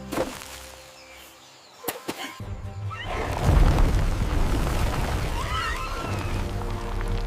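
Sound-effect boom over background music: the music drops out, two or three sharp clicks come about two seconds in, then a heavy low boom about three and a half seconds in, followed by short high warbling squeaks before the music comes back.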